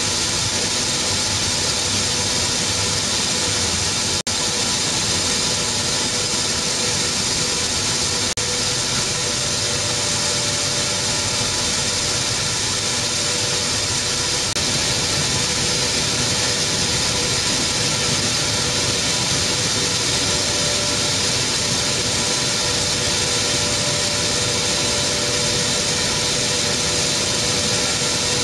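Machinery of a maize flour milling plant running: a steady mechanical noise with a strong hiss on top and steady hums beneath.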